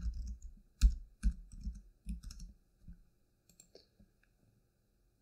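Typing on a computer keyboard: a quick, irregular run of key clicks with dull thuds for about two and a half seconds, then a few faint clicks, then quiet.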